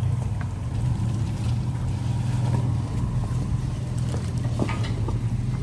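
Toyota 4Runner's 4.0-litre V6 engine running steadily at low trail speed, a constant low drone. A few faint knocks and clicks come around four seconds in.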